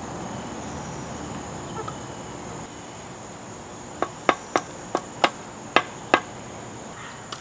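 A brick being tapped down into its mortar bed with the end of a trowel handle striking the level laid on top of it: seven quick sharp taps in about two seconds, starting about four seconds in. A steady high insect trill runs behind.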